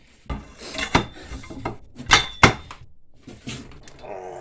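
Steel bench vise cranked down under heavy load with a pipe on its handle, crushing an angle grinder: scraping and creaking, with a sharp metal knock about a second in and two more close together a little after two seconds.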